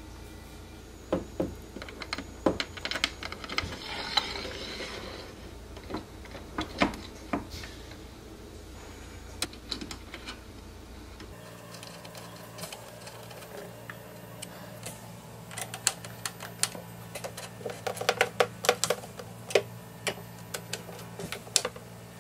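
Hand screwdriver driving screws through small metal L-brackets into a white shelf panel: irregular clicks, taps and scrapes of metal on metal, some in quick clusters.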